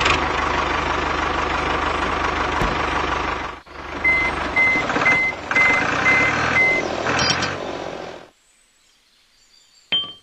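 Tractor engine running steadily, with a short break a few seconds in; then a reversing alarm beeps at an even pace, about two beeps a second, over the engine. The sound cuts off suddenly about eight seconds in.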